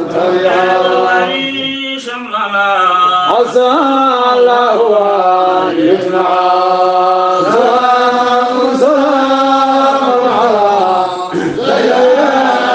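Devotional chanting of a Sufi qasida in praise of the Prophet, sung in long drawn-out lines that bend and glide in pitch, with short breaks about two seconds in and near the end.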